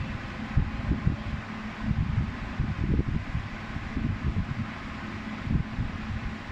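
Gusty low rumble of moving air buffeting the microphone, over a faint steady hum.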